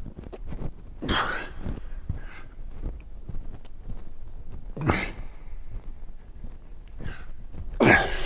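A man's heavy breathing under exertion, with sharp, forceful exhalations about a second in, near the middle and near the end.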